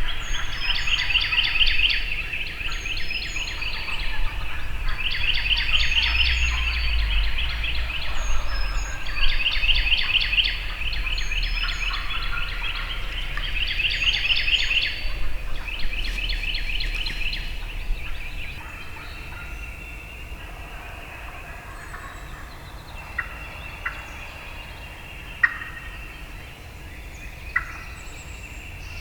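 Wild turkey gobbling from the woods, a run of about six rattling gobbles a few seconds apart. After that it goes quieter, with small songbird chirps and a few sharp chips.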